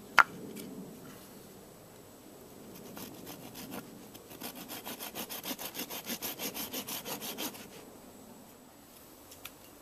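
Small hand saw cutting a slot into a section of split log. There is a sharp click just after the start, then quieter rasping strokes, then a run of fast, even back-and-forth strokes at about seven a second, the loudest in the middle, which stop about three-quarters of the way through.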